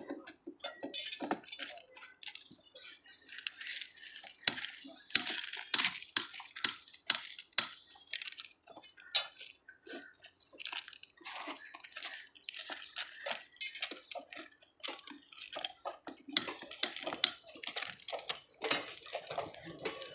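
Irregular metallic clinks and knocks of hand tools striking steel rail and its fittings during a rail repair: many sharp strikes, with no steady rhythm and busier stretches about four to eight seconds in and again near the end.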